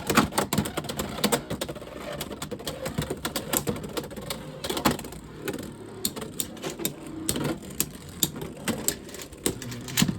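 Two Beyblade X spinning tops, Phoenix Wing and Unicorn Sting, spinning and colliding in a plastic stadium: a rapid, irregular stream of sharp clicks and knocks that thins out toward the end.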